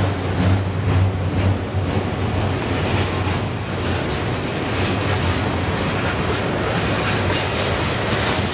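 Freight train cars (autoracks, then covered hoppers) rolling past at speed: a steady rumble, with steel wheels clicking over rail joints.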